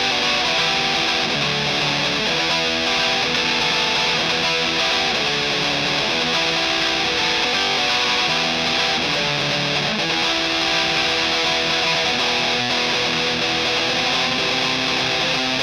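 Electric guitar played through a Tone Bender 3-knob style fuzz pedal: a heavily fuzzed riff of held notes and chords that runs on without a break, with a note sliding down in pitch near the end.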